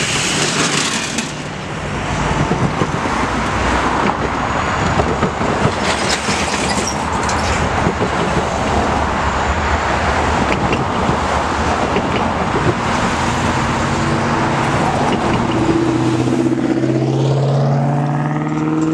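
Car driving along a road: steady tyre and road noise, with an engine note rising in pitch near the end as it speeds up.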